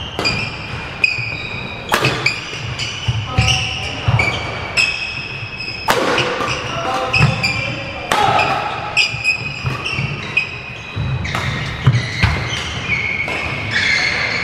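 Badminton rally: racket strokes on the shuttlecock as sharp cracks about once a second, with shoes squeaking on the wooden court floor and footsteps thudding, echoing in a large sports hall.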